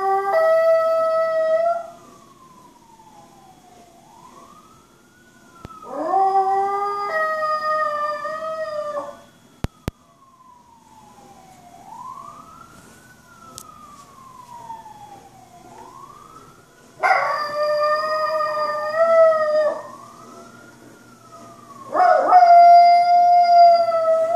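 A Chihuahua howls along with a passing emergency-vehicle siren, giving four long howls that sweep up and then hold a steady pitch. The fainter siren wails slowly up and down throughout.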